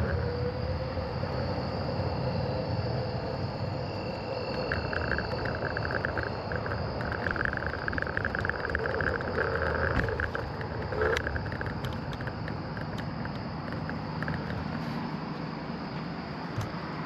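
A scooter riding along the road, its motor running under steady wind and road noise, with a rising pitch right at the start. A high pulsing chirp runs through the middle, and there is a single sharp click about eleven seconds in.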